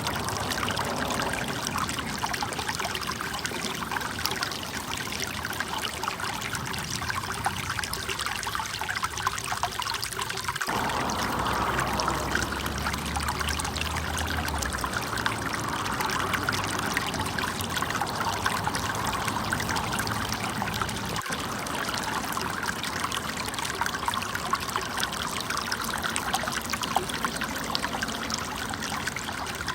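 Water trickling and running steadily, with two brief breaks in the sound about a third and two thirds of the way through.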